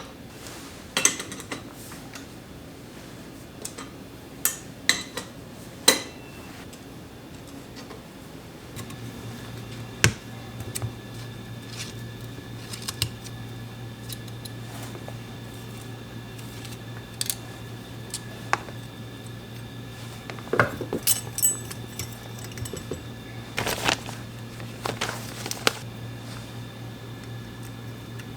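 Metal tools and bicycle parts clinking and clicking as they are handled and fitted, in scattered single knocks with a busier run of clinks in the last third. A low steady hum comes in about nine seconds in.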